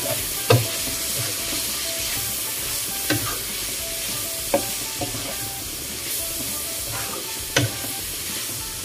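Yardlong beans and pork sizzling in a wok as a wooden spatula stirs them, with a few sharp knocks of the spatula against the pan.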